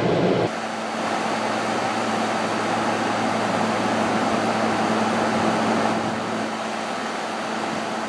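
Frigidaire 12,000 BTU window air conditioner running with its compressor on: a steady rush of fan air over a low, even hum.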